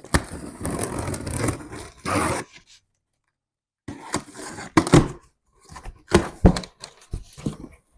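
Packaging rustling and scraping as a shipping box is unpacked, then a second of dead silence, then a string of sharp knocks and clatters as the items are handled and set down.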